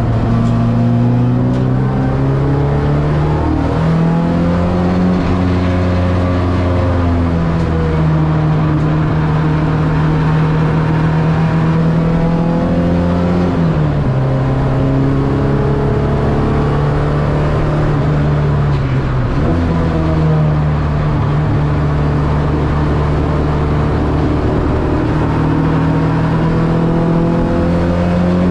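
Ford Escort XR3 race car's CVH four-cylinder engine running hard, heard from inside the cabin. The engine note holds high and steps down and rises again several times as the car shifts gear and comes on and off the throttle.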